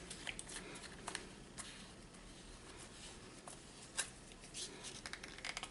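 A packet of sesame seeds being handled and worked open: faint crinkling with small scattered clicks, a sharper click about four seconds in and a quick run of ticks near the end.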